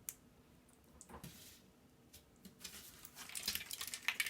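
Parts of a dismantled computer keyboard being handled: a sharp click, then scattered clicks and crinkly rustling that thicken in the last second and a half.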